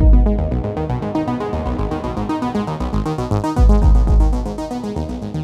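Electronic background music: synthesizer and keyboard notes over a repeating pattern, with heavy bass hits at the start and again a little under four seconds in.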